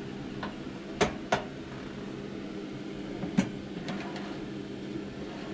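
Metal clanks and ticks from an RV range oven as its door is open and a sheet pan of granola is pulled out on the rack: two sharp clanks about a second in, a louder one past the middle, then a few lighter ticks, over a steady low hum.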